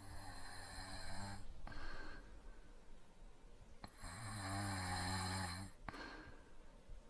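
Light snoring from a sleeper: two snores about four seconds apart, each a low buzzing breath lasting one to two seconds, with softer breathing between them.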